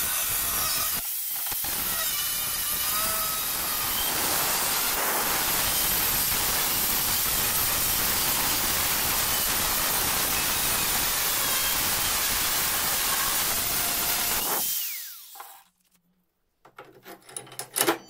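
Angle grinder with a cut-off disc cutting through a steel knife blank (N690 stainless), a steady harsh grinding noise. About three-quarters of the way through it is switched off and its whine drops in pitch as the disc spins down, followed by a few light clicks as the cut blade is handled.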